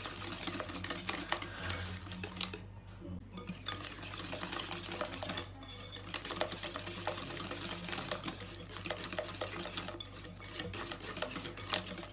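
Metal balloon whisk beating a thick egg, sugar and cornstarch batter in a bowl: a fast, continuous scraping and ticking of the wires against the bowl, with two brief pauses about three and five and a half seconds in.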